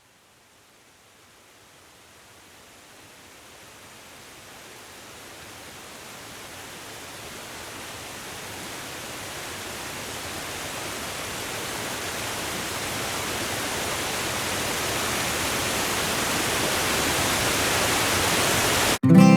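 Steady rushing water of a waterfall, fading in from silence and growing steadily louder, then cut off suddenly near the end as strummed acoustic guitar music begins.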